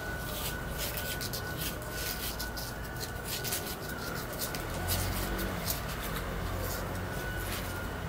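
Newborn kittens squirming in a cardboard box: soft scratching and rustling of claws and fur on the cardboard, heard as a scatter of faint irregular clicks over a low steady hum.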